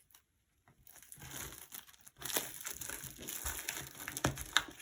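Crinkling and crunching handling noise, building up about two seconds in, with a few sharp clicks near the end.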